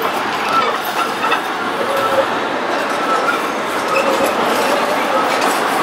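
An articulated low-floor tram rolling past on street rails: a steady rumble of wheels on track, with short, thin wheel-squeal tones coming and going.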